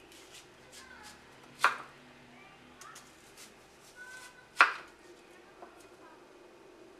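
Chef's knife slicing an onion into thick rounds on a wooden cutting board: two loud knocks of the blade meeting the board about three seconds apart, with fainter clicks between.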